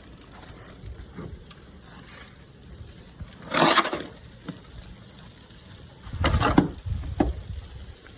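Snow being cleared by hand in deep fresh snow: a few short strokes, the first about three and a half seconds in and two more around six to seven seconds.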